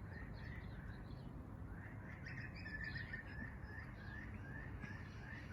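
Rosellas giving alarm calls: a run of short, evenly repeated high chirps, about three a second, starting about two seconds in.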